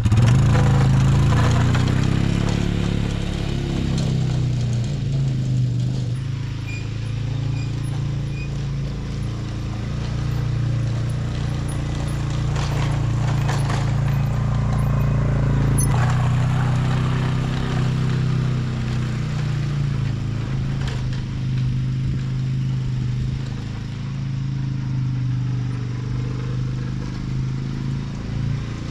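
ATV (four-wheeler) engine running while it tows a core aerator, its pitch rising and falling in the first few seconds as it pulls away, then holding fairly steady.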